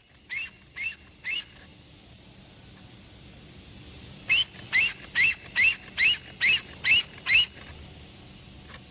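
Gulls calling in quick series of short rising cries, three near the start and eight more from about four seconds in, over a steady low wash of sea.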